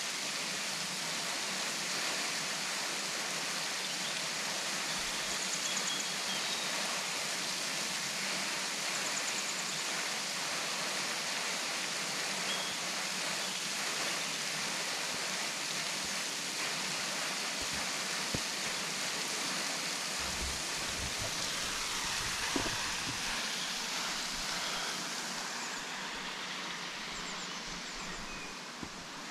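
Henrhyd Falls waterfall: a steady, even rush of falling water. It eases slightly near the end, and there is one small knock a little past the middle.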